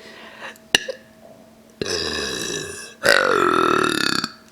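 Two long belches from a woman burping on swallowed air rather than a drink; the second is louder, and each drops in pitch as it goes.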